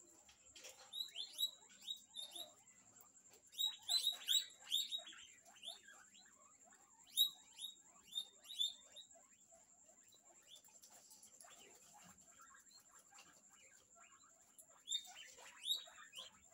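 Guinea pigs squeaking: short, high, falling squeaks in quick bursts of several, with a quiet stretch of several seconds before a last burst near the end.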